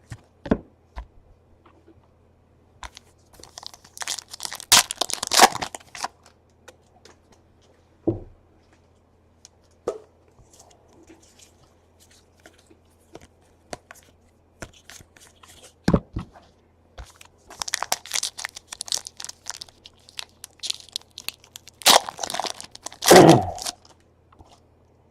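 Trading card pack wrappers being torn open and crinkled, in two spells: one about four seconds in, and a longer one from about eighteen seconds. Scattered small clicks and taps come in between.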